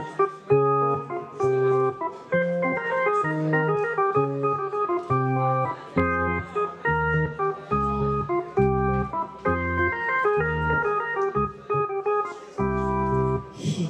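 Stage keyboard playing a solo instrumental intro in an organ-like tone: held chords changing every half second or so, with deeper bass notes coming in about six seconds in.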